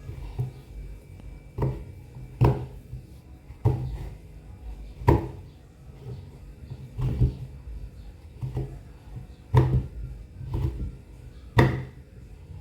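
Knife chopping through a block of chocolate onto a cutting board: about ten separate knocks with a low thud, coming roughly once a second at an uneven pace.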